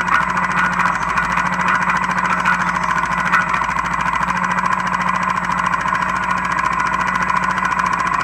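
Honda Foreman 450 ES quad's single-cylinder four-stroke engine running steadily, heard loud and close from the rear rack.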